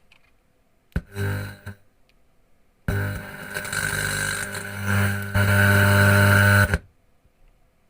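Music played through a loudspeaker driven by a homemade TDA2003 amplifier, in abrupt snippets: a brief burst about a second in, then a longer passage with heavy bass from about three seconds in that cuts off shortly before the end.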